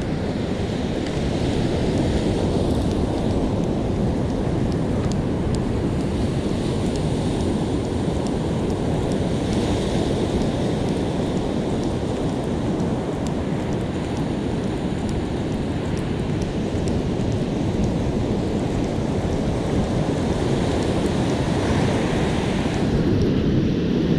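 Steady wind noise on the microphone mixed with the rush of breaking surf, swelling a little now and then as waves break.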